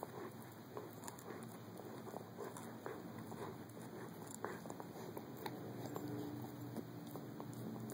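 Caucasian Ovcharka puppy gnawing on a pizzle (dried bully stick): faint, irregular wet chewing clicks and small crunches.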